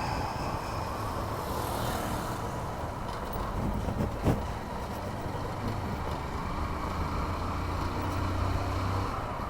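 Motorcycle engine running steadily under rushing wind and road noise, picked up by a phone earphone microphone, with a brief low thump about four seconds in.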